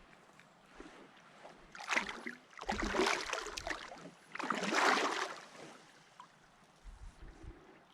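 Kayak on a shallow river, with three loud swishing splashes of water, each about a second apart, and a few low bumps near the end.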